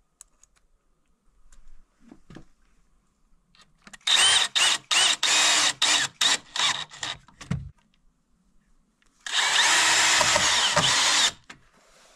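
Cordless drill driving screws through a steel angle bracket into a timber stud: a string of short stop-start bursts of the motor, then one steady run of about two seconds near the end.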